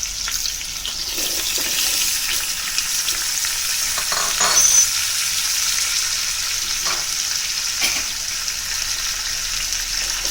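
Sliced potatoes sizzling steadily in hot oil in a kadai, with a few short knocks from about four seconds in.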